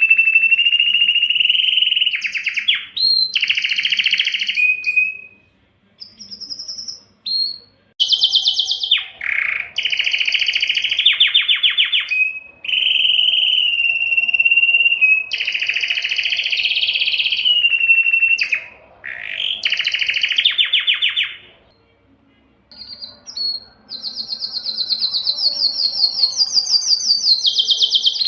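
Spanish timbrado canary singing: long phrases of held, steady whistled notes alternating with fast rattling trills, broken by a couple of short pauses.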